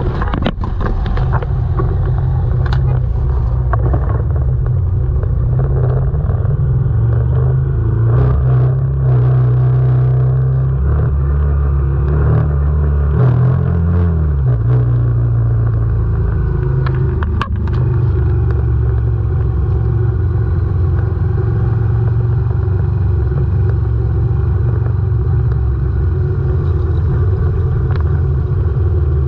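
Moto Guzzi V85 TT's air-cooled transverse V-twin engine running under way, heard close up from the bike, with its pitch rising and falling between about ten and fifteen seconds in. There is one sharp knock a little past the middle.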